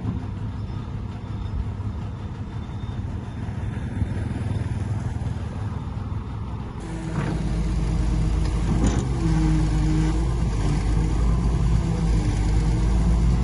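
Diesel engine of heavy earthmoving machinery running. About halfway through the sound cuts to a louder, deeper engine whose pitch rises and falls as it works.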